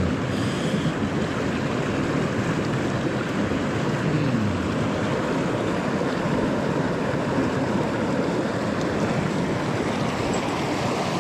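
Steady rush of flowing water in a mountain stream.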